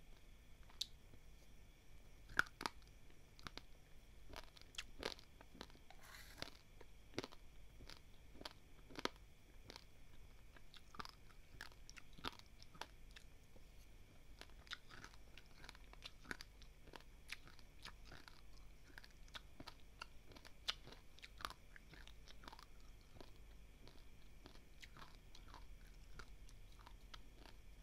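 Close-up crunching and chewing of dry, uncooked basmati rice grains: a steady run of small, sharp, irregular cracks as the hard grains break between the teeth.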